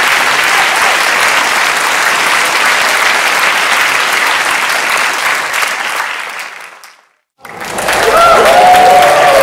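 Applause from a large audience, many people clapping, fading out about seven seconds in. After a brief silent gap a second loud round of applause starts, with voices cheering over it.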